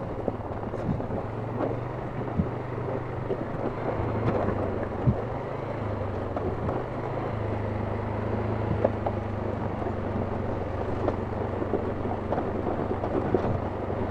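ATV engine running at a low, steady trail speed, with scattered knocks and rattles as it rides over rough ground.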